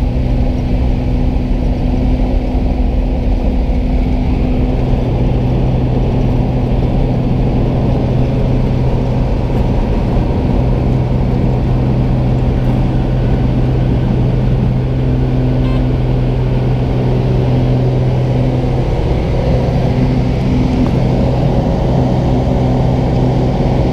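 Small single-engine propeller plane's engine running at high power, heard from inside the cabin during the takeoff roll: a loud, steady drone with a constant low tone, the tone strengthening about four seconds in.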